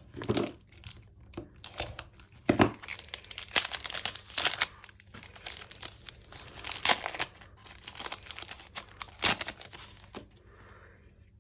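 Foil wrapper of a trading-card pack being torn open and crinkled by hand, in irregular crackling rips. It goes quieter near the end as the cards come out.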